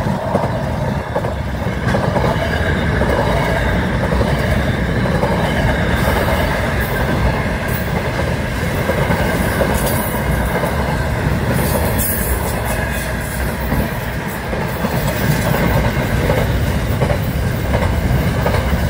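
Container wagons of a freight train rolling past close by: a steady, loud rumble and clatter of steel wheels on the rails, with a few brief sharp metallic noises along the way.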